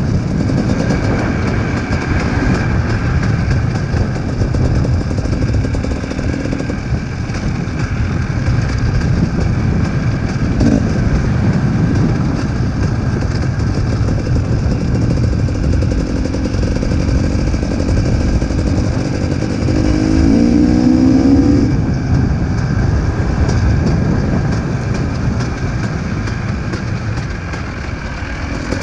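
Dirt bike engine running under way along a dirt track, heard from the rider's seat. The revs rise briefly about twenty seconds in.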